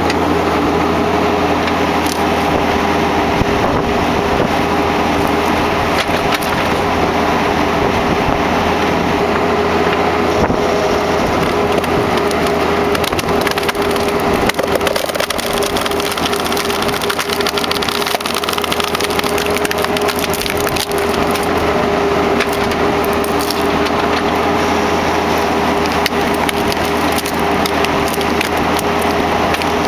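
Mini excavator's diesel engine running steadily under hydraulic load while a screw-cone log splitter bores into a large log. The wood crackles and splinters continuously as the cone forces it apart.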